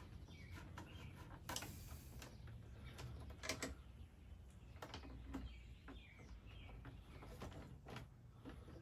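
Faint scattered clicks and knocks of hands working on wiring and parts, with faint chirping in the background.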